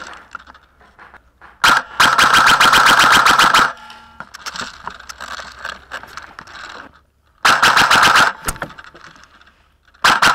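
Airsoft rifle firing on full auto in rapid bursts. A long burst of nearly two seconds comes about two seconds in, a shorter one near eight seconds, and a brief one at the very end.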